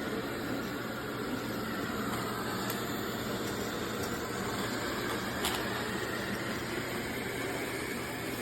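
FIXR T20 robot vacuum running, a steady motor hum with a faint click about five and a half seconds in.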